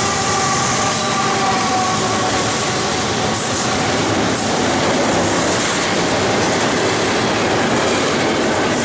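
BNSF double-stack container train passing close by at speed: a loud, steady rush of wheels running on rail. A faint whine fades out over the first two seconds as the locomotives go by.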